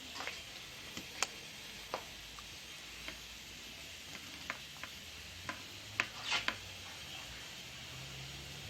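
Scattered small clicks and taps of tools and parts being handled at a workbench, about a dozen irregular ones, with a short hiss about six seconds in.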